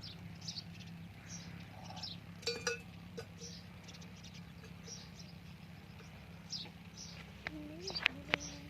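Small birds chirping: many short, high chirps scattered throughout, over a steady low hum. There are a few clicks about two and a half seconds in, and two short low calls near the end.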